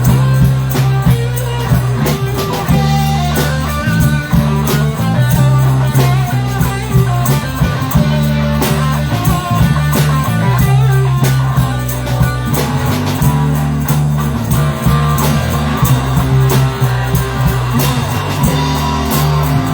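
Rock band playing an instrumental passage, electric guitar out front over bass guitar and a steady beat.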